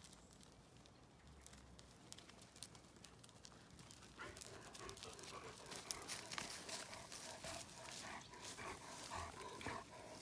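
Dogs growling in a play tug of war, in rough broken bursts that start about four seconds in, with scattered light clicks.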